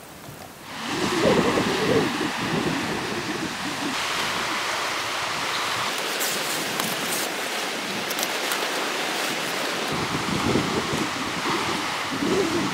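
Outdoor wind: a steady rushing noise with gusts buffeting the microphone, starting about a second in and rising again near the end.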